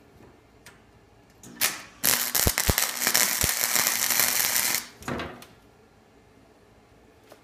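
110-volt flux-core wire welder arc: a brief spurt about a second and a half in, then a steady crackling arc for about three seconds that cuts off suddenly, as a small fill weld is laid on a steel knife blade.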